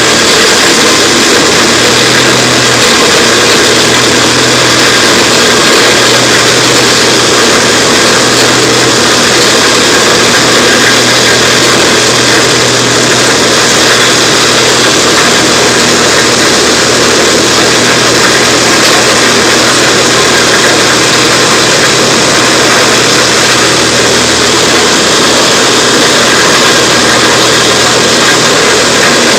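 Large engine-driven wood chipper running steadily: an even engine drone under a constant loud rushing noise, with no breaks or changes.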